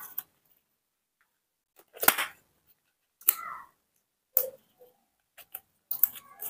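A few short, sharp clicks and brief rustles spaced a second or more apart, the loudest about two seconds in: handling noise from close by.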